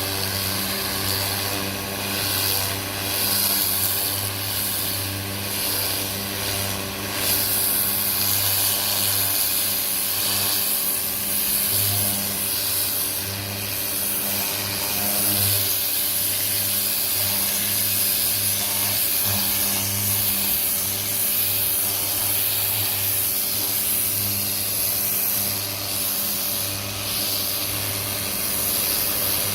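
Greenworks 1600 psi electric pressure washer running: the motor and pump hum steadily, wavering in strength, under the hiss of water spraying from the turbo nozzle.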